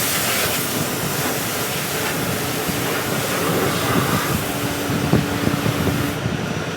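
Car wash spraying water over a car: a steady rushing noise with a low hum running under it for a few seconds, the highest part of the noise dropping away shortly before the end.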